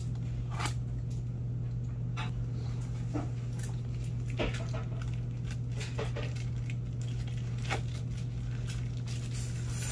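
Cardboard box packaging being opened and handled by hand: scattered short rustles, scrapes and light taps, over a steady low hum.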